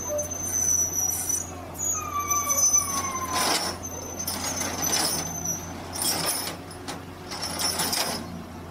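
UltraTrex AX110LRP amphibious excavator running with a steady low engine hum as it shifts on its pontoon tracks, with thin metallic squeals in the first half and four short bursts of hissing, scraping noise.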